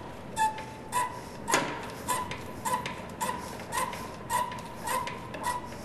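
Catalyst pump of a Graco FRP chop system being primed by hand: its pump handle worked up and down about twice a second, each stroke a click with a short squeak, building the catalyst pressure toward 300 to 400 PSI.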